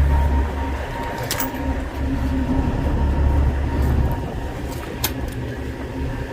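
Semi truck's diesel engine idling with a low, pulsing rumble, and two sharp clicks, about a second and about five seconds in.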